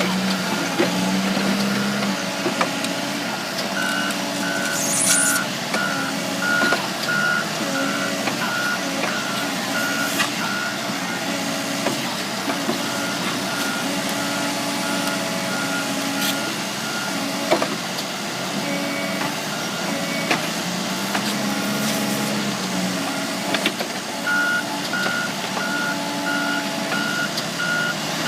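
Case 580 Super N backhoe loader's diesel engine running, with its reversing alarm beeping steadily in three spells as the machine backs up. The engine briefly rises in pitch twice.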